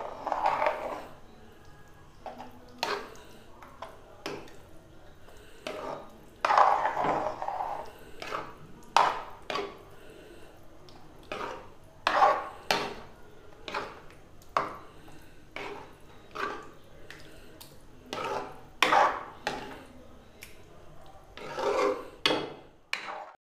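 A spatula scraping and stirring in a metal kadhai, working ground chana dal paste into milk and cream: a run of irregular scraping strokes, about one or two a second.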